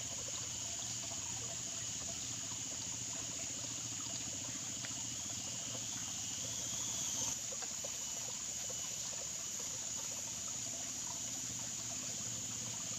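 Steady high-pitched insect chorus over trickling water, with a slight swell that cuts off suddenly about seven seconds in.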